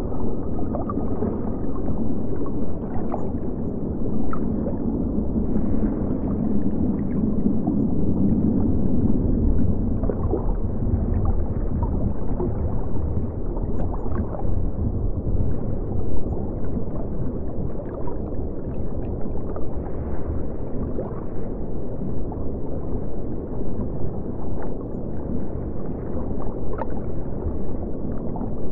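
Underwater water ambience: a steady, muffled low rumble of moving water with scattered small bubbling ticks.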